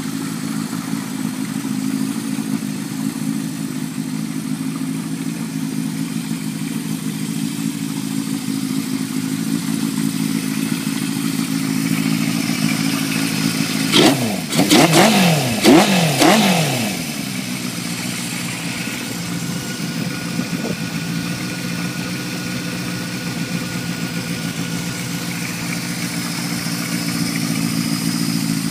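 Honda CB550 cafe racer's air-cooled inline-four engine idling steadily. About halfway through the throttle is blipped in a few quick revs that rise and fall back to idle.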